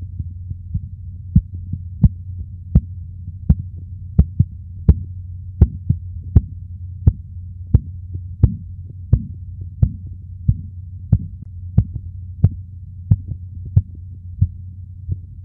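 Korotkoff sounds heard through a stethoscope as a blood pressure cuff deflates: a regular tapping about 85 times a minute, faint at first, loudest in the middle and fading near the end. The run of taps marks the pressure falling from systolic toward diastolic. A steady low hum lies underneath.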